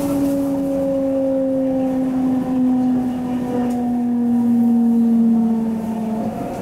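MTR C-Train's VVVF traction inverter whining loudly, a steady tone with overtones slowly falling in pitch as the train slows, cutting off near the end.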